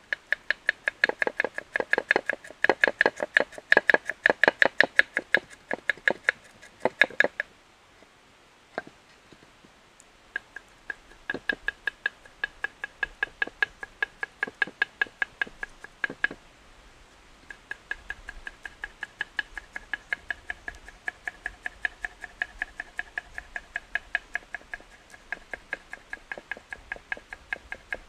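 Kitchen knife chopping quickly on a wooden cutting board, a fast even run of sharp knocks, several a second, each with a short ringing tone. The chopping stops for about three seconds after the first quarter, with a few single knocks, and briefly again in the middle.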